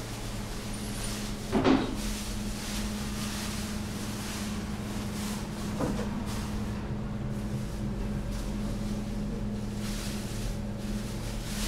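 A steady machine hum, with a loud knock about two seconds in and a lighter knock near the middle.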